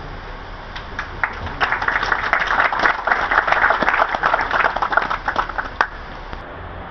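Audience applauding: scattered claps thicken into steady clapping about a second and a half in, then die away before the end.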